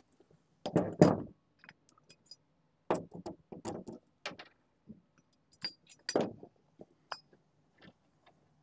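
Irregular metallic clinks and knocks of tools and metal parts being handled, the loudest about a second in, around three to four seconds, and just past six seconds.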